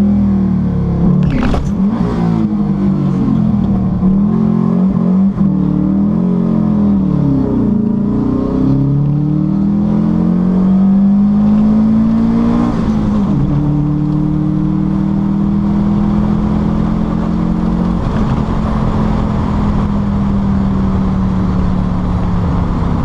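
Subaru flat-four engine in a VW Beetle, heard from inside the car on a drag-strip run at full throttle. Its pitch climbs and drops several times as it shifts up through the gears, then holds a long high pull and slowly winds down near the end.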